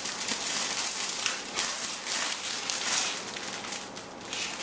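Packaging crinkling and rustling as a stack of mesh scarves is handled and unpacked from a shipping box, easing off briefly about four seconds in.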